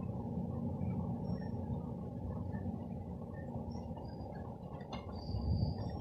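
Low, steady rumble of a CrossCountry Voyager diesel multiple unit's underfloor engines as the train pulls away along the platform.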